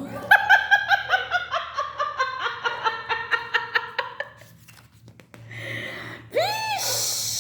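A high, rapid witch's cackle, about four seconds of quick repeated 'he-he-he' notes, followed near the end by a short upward-and-downward swooping tone and a hiss.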